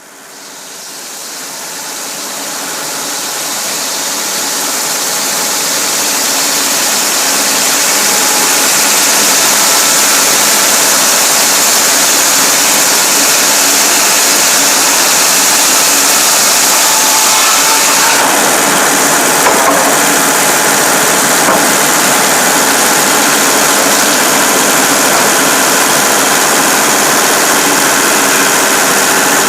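Cummins diesel engine powering a sawmill, running steadily. It fades in from silence over the first several seconds, and its tone shifts a little about two-thirds of the way through.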